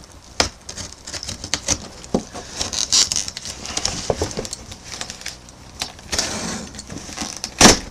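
Scratching, scraping and clicking of a small metal tool working at the packing tape and cardboard of a box to cut it open, in irregular short strokes, with one sharp crack near the end.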